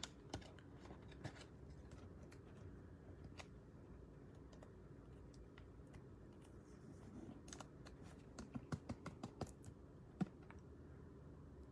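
Faint clicks and light rustling of trading cards and a clear plastic card holder being handled. There is a quick run of small clicks near the end.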